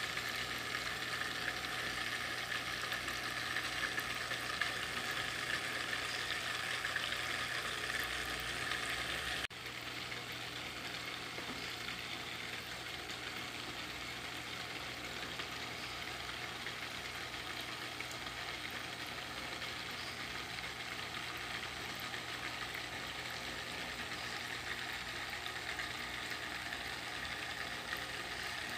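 Small water feature trickling and splashing steadily over gravel and stones, with a low steady hum underneath. The sound drops a little and changes about nine and a half seconds in.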